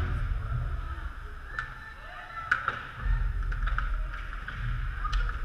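Ice hockey play on the rink: skates scraping the ice and several sharp clacks of sticks and puck, over a steady low rumble.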